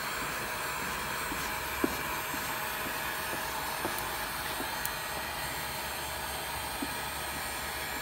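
Milwaukee heat gun running steadily, blowing hot air over wet-applied vinyl, with a few faint light ticks.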